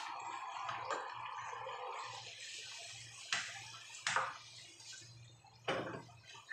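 Food sizzling in a wok, the hiss dying down about two seconds in, then a spatula stirring and knocking against the pan three times.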